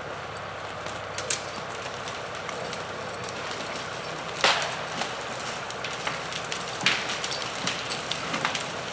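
Steady running of a John Deere 2750 tractor powering a Uniforest 65H three-point skidding winch, with sharp cracks of wood and branches snapping as the winched tree is dragged through standing trees. There are four cracks, the loudest about four and a half seconds in.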